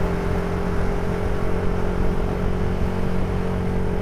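A vehicle's engine running at a steady, even speed while riding along, with a constant hum and road and wind noise.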